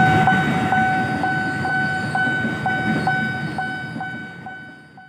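Railway level-crossing bell ringing in a steady two-tone peal, about two strikes a second, over the low rumble of a KRL commuter electric train passing the crossing. The sound fades out near the end.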